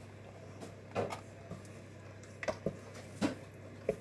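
A few light knocks and taps from handling things in a small kitchen, about five in all and spread out, over a low steady hum.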